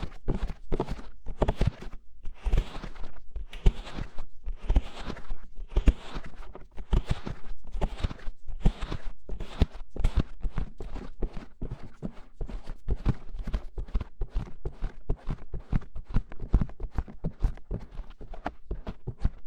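Hands rapidly cupping, patting and scratching over an ASMR microphone's ears: quick muffled thumps, about three to four a second, with soft scratchy rustles between them.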